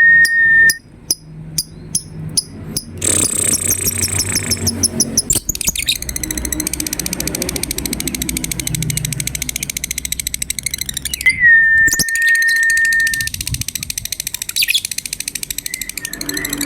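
Lovebird calling in a long, very rapid chattering trill, the 'ngekek' song, broken by a few sharp clicks near the start. A held, steady whistle-like note comes in at the very start and again about two thirds of the way through.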